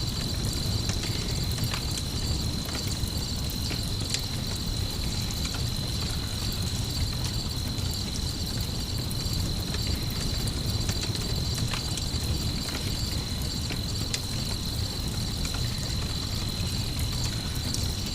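Layered night-ambience sleep soundscape: crickets trilling steadily and high, over a low rumble, with scattered small crackles of a campfire.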